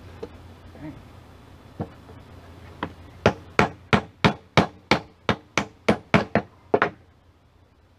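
Claw hammer driving a nail into a treated pine board: a few light setting taps, then about a dozen sharp, even blows at roughly three a second that stop near the end.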